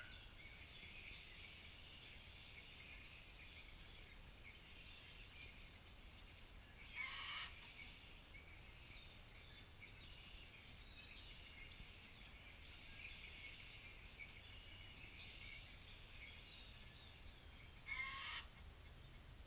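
Two short, high-pitched bleats from a baby goat, one about seven seconds in and one near the end. Under them runs a steady, faint chorus of small birds chirping.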